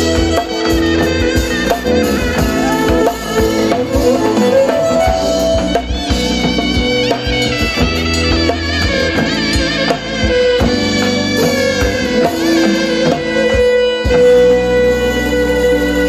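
Turkish folk music played live: a zurna carries a bending, ornamented melody over a bowed kabak kemane and a drum kit, settling into one long held note near the end.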